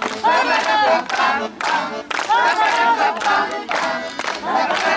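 A group of voices singing together in short phrases, with brief breaks between them.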